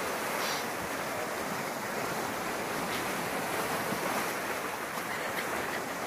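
Steady wash of sea surf breaking on a shore.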